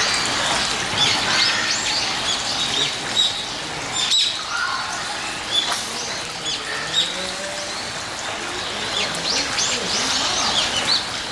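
Many small birds chirping: a dense scatter of short, high chirps over a steady background hiss, thickest near the start and again near the end.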